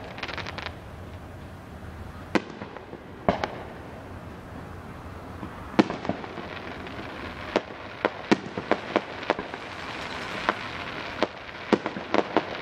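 Fireworks display: sharp bangs of fireworks going off at irregular intervals, a few spaced out at first and then coming in quicker succession from about six seconds in, with a growing crackling hiss near the end.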